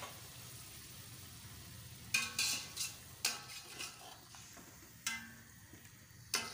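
Chicken, onions and spices frying in a metal pot with a steady sizzle, with yogurt just stirred in. From about two seconds in, a metal slotted spoon stirs the mix and strikes the pot with a series of sharp, ringing clanks, about six of them.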